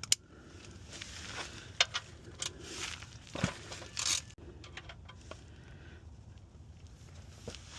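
Scattered metal clicks and knocks of a wrench working the oil drain plug loose under the car, with a short rush of noise about three and a half seconds in.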